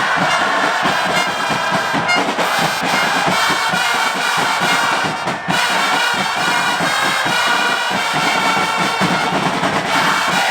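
Supporters' trumpets playing a tune over a drumbeat in a football stadium stand, with the crowd noise of the supporters underneath.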